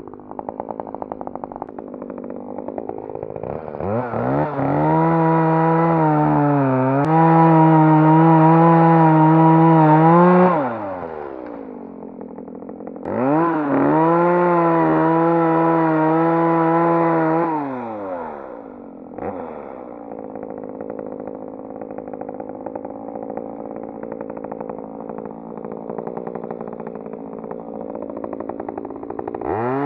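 Ryobi ES-3035 chainsaw running up to full speed twice, for about six and then five seconds. Its pitch dips slightly while it runs, and each time it winds down with a falling whine. A lower, steady machine sound ticks on between and after the two runs.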